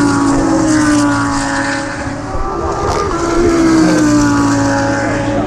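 GT3 race car engines running hard, their note falling in pitch twice: once over the first two seconds, then again from about three seconds in.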